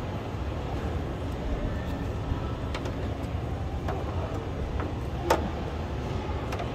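Steady low hum of a large exhibition hall, with a few light clicks and one sharper click about five seconds in, from a pickup tailgate being pulled up by a bungee cable.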